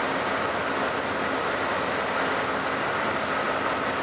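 Amtrak passenger train of Superliner cars and a diesel locomotive rolling past: a steady rush and rumble of wheels on the track with a faint steady whine over it.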